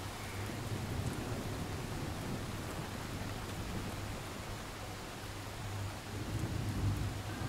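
Steady rain falling, with a low rumble of thunder swelling near the end.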